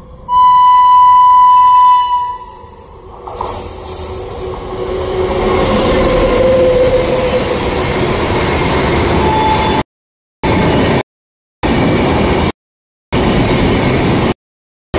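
An express train's horn sounds one long, loud blast. Then the train passes at about 100 km/h, its passenger coaches rolling by with a steady loud rush of wheels on rail. From about two-thirds of the way through, the sound cuts out completely several times in short gaps.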